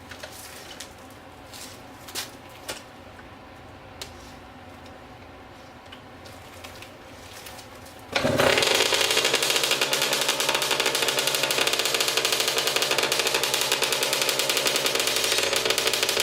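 A few faint knocks, then about eight seconds in a Yamaha YZ85's two-stroke engine fires and runs loud through an FMF Powercore 2 shorty silencer, with a rapid, even pulse.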